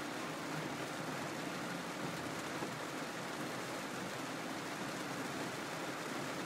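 Heavy rain falling on a car's windscreen and body, heard from inside the cabin as a steady, even hiss.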